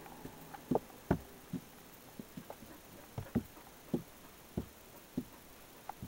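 A dog and a cat wrestling: irregular soft thumps and scuffles, about a dozen scattered through a few seconds.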